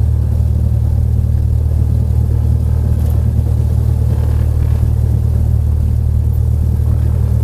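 Cessna 172's piston engine running steadily at low taxi power, heard from inside the cabin as a deep, even drone.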